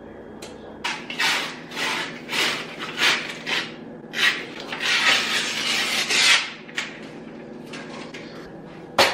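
Paper wrapper being peeled off a cardboard tube of refrigerated cinnamon roll dough: a string of uneven rasping, tearing strokes, then a single sharp crack near the end.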